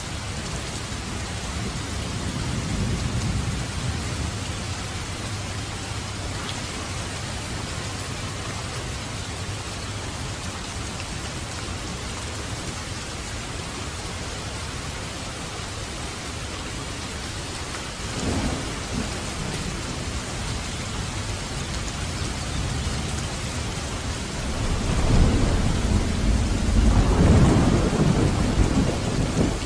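Steady heavy rain with rolling thunder: a low rumble a few seconds in, a shorter one just past the middle, and a louder, longer rumble near the end.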